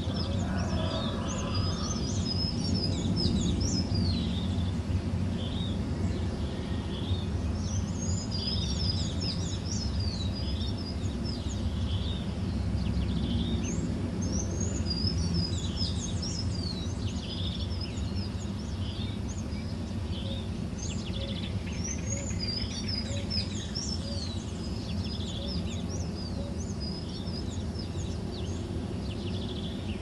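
Dawn chorus of many small birds, with overlapping quick chirps and twitters that thin out in the last few seconds, over a steady low background rumble.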